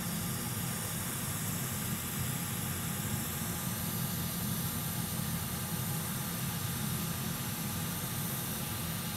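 Steady low hum and hiss of a fan running, with no strokes or changes.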